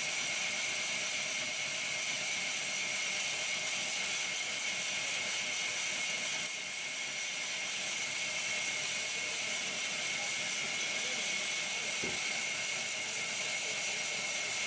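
Large sawmill band saw running steadily with a high whine as timber is fed through its blade. A short knock comes about twelve seconds in.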